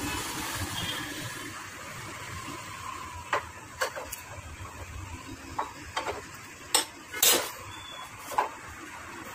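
Sharp metal clinks and knocks from a long steel tool working at the bottom of a motorcycle front fork leg, about ten irregular strikes with the loudest near the end, as the fork is dismantled for an oil seal change. A passing engine fades away in the first two seconds.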